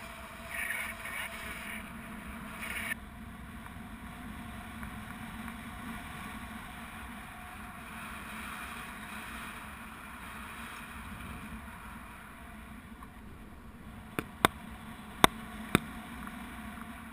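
Steady rushing wind noise of the airflow over a GoPro during paraglider flight. About fourteen seconds in, four sharp clicks come within two seconds.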